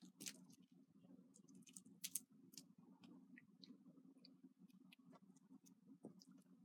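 Faint scattered clicks and scratches of a cat pawing and clawing at a toy mouse on a rug, over a low steady hum. The sharpest clicks come about a quarter second and two seconds in.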